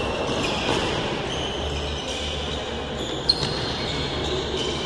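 Futsal play on an indoor hard court, echoing in a large hall: the ball being kicked and bouncing on the floor, and sneakers squeaking, with one sharp kick about two-thirds of the way through.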